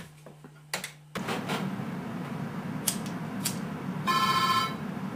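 Telephone ringing: one short electronic ring about four seconds in, over a steady hiss that starts with a click about a second in.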